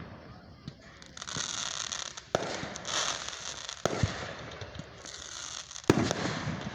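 Aerial fireworks bursting: sharp booms about 2.3, 4 and 6 seconds in, with smaller pops between them and a crackling hiss from the shells in the gaps.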